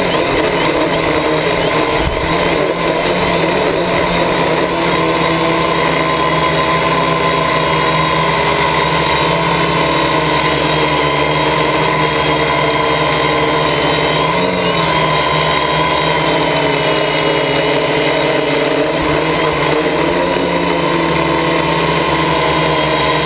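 Quadcopter's electric motors and propellers whirring steadily in flight, heard up close from the on-board camera, with a brief wobble in pitch a little past the middle.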